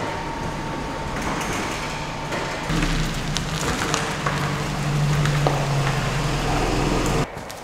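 Sectional garage door rolling open with a steady hum and rattle, then a Toyota bB Open Deck mini pickup's engine running low and steady as it drives slowly in through the doorway, cutting off just before the end.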